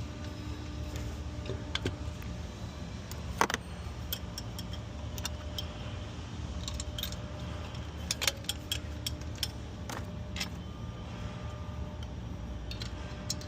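Irregular sharp metallic clicks and clinks of hand tools and bolts being worked while an intake horn is fastened down on an engine, over a steady low hum.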